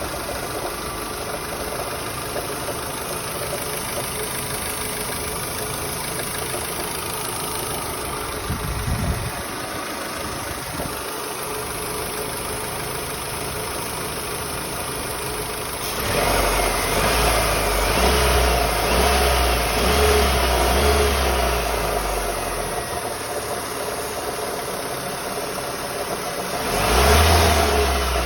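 Mitsubishi Lancer IX's 4G18 1.6-litre four-cylinder petrol engine idling, with a strange knock that the owner cannot explain; the engine was recently rebuilt with new rings and valve stem seals and is still being run in. It is revved up for several seconds about sixteen seconds in and again briefly near the end.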